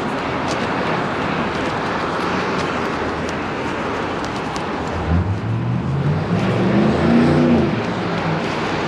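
A car accelerating past on the street about halfway through, its engine note rising in two steps and then dropping away, over steady city traffic noise.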